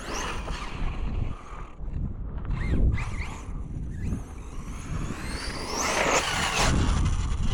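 Arrma Fire Team RC car's brushless motor running, with a whine that rises in pitch about five seconds in as the car accelerates. Wind rumbles on the microphone throughout.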